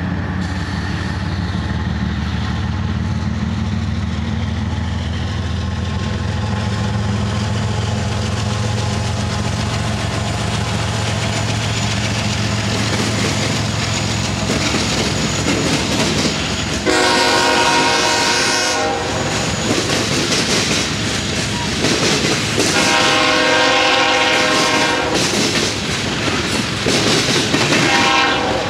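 Freight train passing: diesel locomotives, a Union Pacific ES44AC with a CSX SD40-3, rumble by, then the cars' wheels clatter over the rails. A multi-chime air horn sounds in three chords more than halfway through: two long ones about five seconds apart and a short one near the end.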